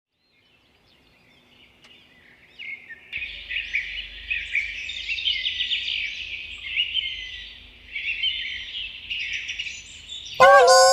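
A chorus of many small birds chirping and twittering together, fading in out of near silence after about two seconds, with a faint steady low hum underneath. Just before the end, a louder, lower-pitched call with a falling pitch cuts in once.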